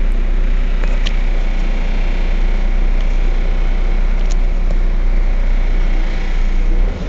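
Heuliez GX 127 city bus's diesel engine idling while the bus stands still, a steady low rumble. The level drops briefly near the end.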